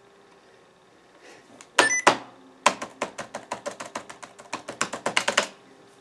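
Keys on an IBM ThinkPad 600E laptop keyboard pressed rapidly over and over, a fast clatter of about nine clicks a second, after a couple of louder knocks about two seconds in.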